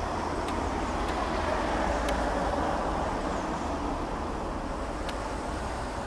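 Steady road traffic rumble that swells about two seconds in, as a vehicle passes, then eases off, with a few faint high ticks.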